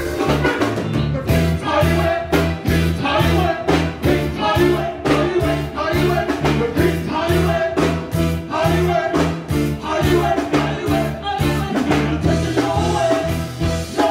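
Live reggae band playing with a lead singer, over a repeating bass line and a steady beat.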